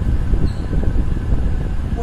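Steady low rumbling background noise with no speech.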